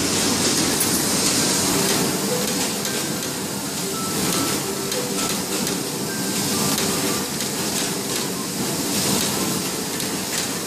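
Steady hiss and whir of box-making machinery running on a factory floor, with scattered faint clicks and brief faint tones.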